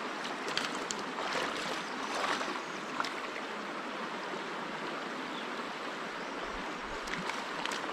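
Shallow rocky stream running steadily over stones, a continuous rushing of water, with a few faint clicks in the first few seconds.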